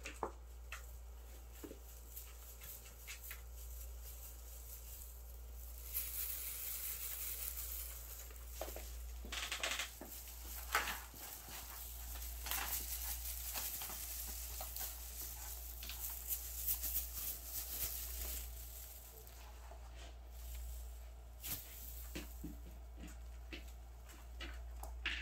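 Kittens scrabbling and pouncing at a dangled wand toy: scattered light taps, scratches and rustles of paws and claws on a carpet scratcher and wooden floor, busiest through the middle, over a steady low hum.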